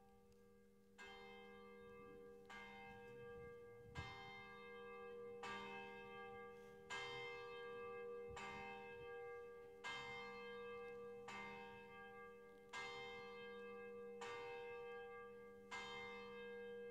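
A single church bell tolling, struck about every second and a half at the same pitch, each stroke ringing on into the next.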